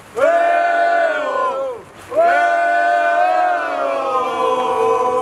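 Football supporters chanting in unison in two long shouted phrases, with a short break about two seconds in; the second phrase ends on a long held note.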